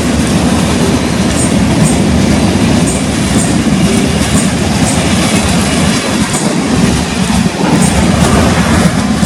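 Passenger train rolling past close by: a steady heavy rumble with the clickety-clack of wheels clicking over rail joints every half second or so.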